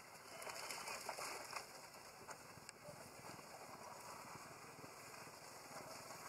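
Long-tailed macaques splashing and wading in shallow pond water, faint, a little louder in the first second and a half, with a few light splashes or clicks in the middle.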